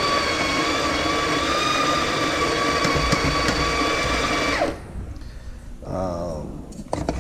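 Breville Smart Grinder Pro's conical burr grinder motor running steadily, grinding coffee beans to purge the last cleaning-tablet residue from the burrs. It shuts off about four and a half seconds in, with a short drop in pitch as it winds down. A light click comes near the end.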